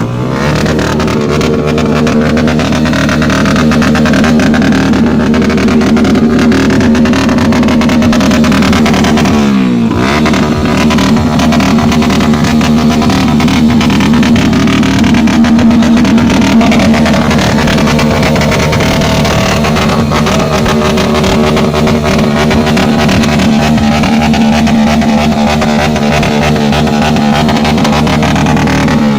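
Motorcycle engine running loud at steady high revs, the pitch dropping briefly and climbing again about ten seconds in.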